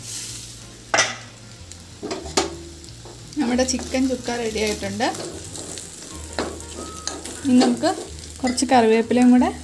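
Steel spoon stirring chicken pieces frying and sizzling in a steel kadai, with a couple of sharp clinks of spoon on metal in the first few seconds. After that come repeated pitched scraping strokes of the spoon against the pan, the loudest near the end.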